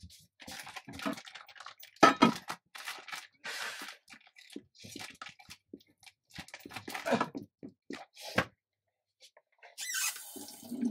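Plastic packaging crinkling, rustling and tearing as it is handled and opened, in short irregular bursts, with a sharp knock about two seconds in.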